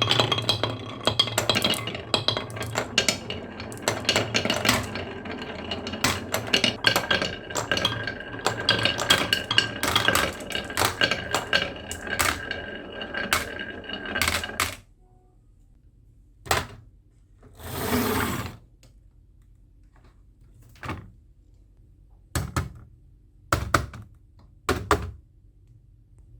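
Marbles rolling and clacking down a wooden marble run: a dense clatter of clicks with some ringing, which stops abruptly about 15 seconds in. After that come a few separate knocks and one short rolling rush.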